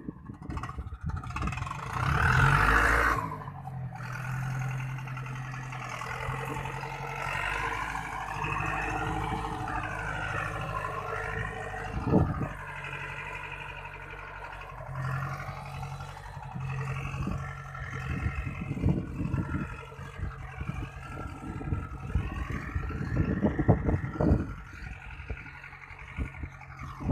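Tractor diesel engine running steadily in the field, with irregular low thumps and a loud broad burst a couple of seconds in.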